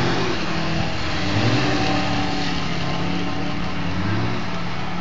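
Subaru 4x4 ute's engine revving up and down repeatedly as it drives through mud, over a steady rushing noise.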